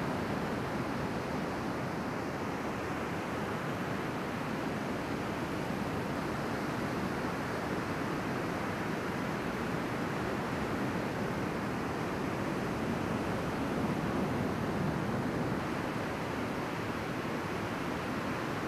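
Ocean surf breaking and washing in over the shallows, a steady rush of noise.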